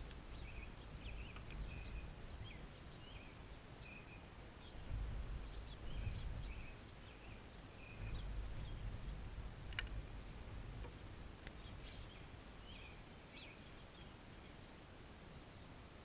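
Small songbirds chirping in short, repeated notes over a low, uneven rumble, with one sharp click about ten seconds in.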